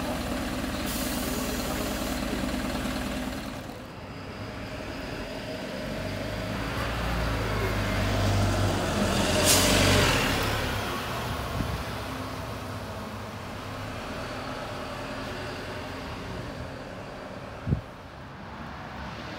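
Isuzu Erga city bus's diesel engine idling, heard from inside the bus. About halfway a heavier engine rumble swells and fades, with a brief hiss of air at its peak, as another bus comes into the depot, and there is one sharp click near the end.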